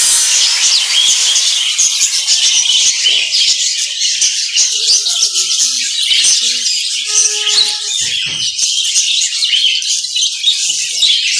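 Many caged birds chirping and chattering at once, a dense high twittering chorus, with a few short lower calls standing out near the middle.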